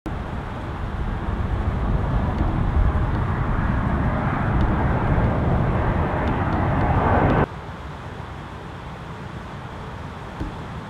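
Jet airliner passing low overhead on approach, a noisy engine rumble that grows louder and then cuts off suddenly about seven seconds in, leaving a quieter steady background hum.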